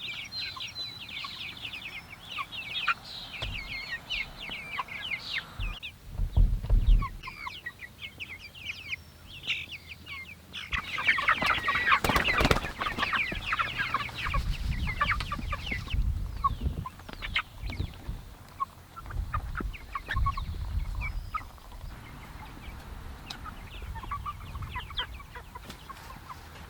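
A flock of young meat chickens peeping and clucking, many short high chirps overlapping, busiest about eleven to thirteen seconds in. A few dull low thumps sound in between, the loudest about six seconds in.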